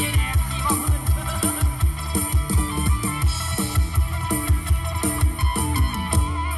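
Song with drums and guitar and a steady beat, played through an AIWA MI-X180 Retro Heritage Bluetooth speaker.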